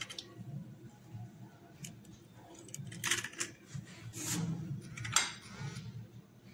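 Scattered light clicks and rustles of eggshell and hands at a stainless steel mixing bowl as an egg is broken into flour, with a sharper click near the end that rings briefly, over a low steady hum.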